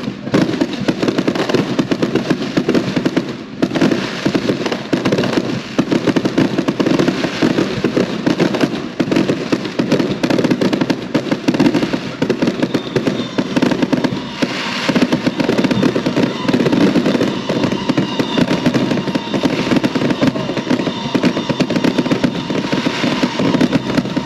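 Fireworks going off in a continuous barrage of rapid, overlapping pops and bangs with no break.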